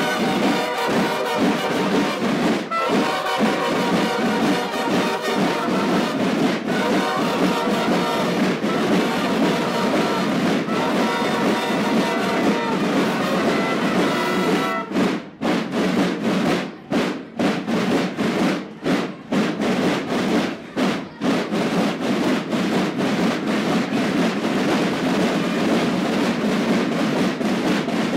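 Children's marching band playing brass and drums: trombones and trumpets over snare and bass drums. About halfway through, the music breaks into short punched hits separated by brief gaps for several seconds, then runs on.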